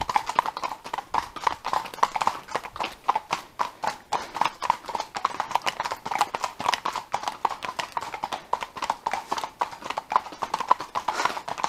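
Horse hooves clip-clopping in a steady, even rhythm of several hoofbeats a second.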